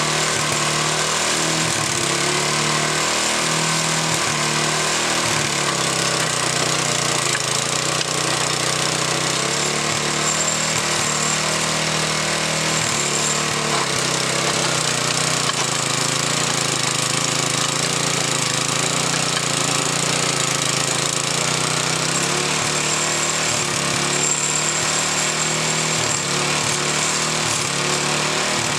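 Earthquake garden tiller's small gas engine running steadily while its tines work the soil, at an even, unbroken level.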